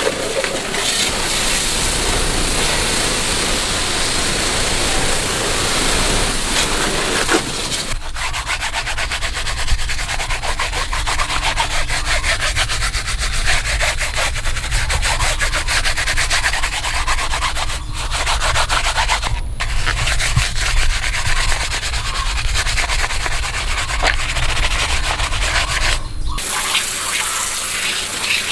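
Bare hands scrubbing a soapy rubber scooter floor mat, a dense run of quick rubbing strokes. A steadier rushing noise fills the first several seconds.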